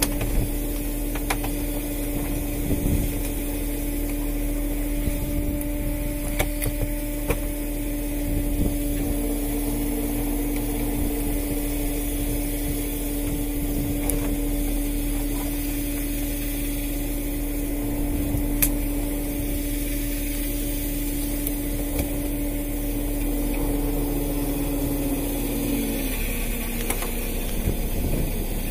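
Hydraulic line hauler and engine of a small longline fishing boat running with a steady hum, which drops slightly in pitch near the end. A few sharp clicks and knocks sound over it.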